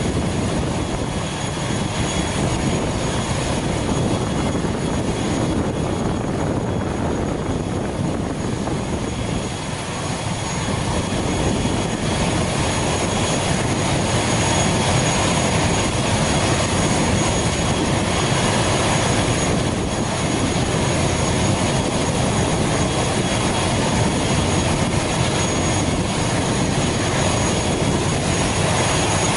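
Steady turbine whine and rush from a parked ATR 72-600 turboprop with an engine running at ground idle, thin high whistling tones held over a continuous roar.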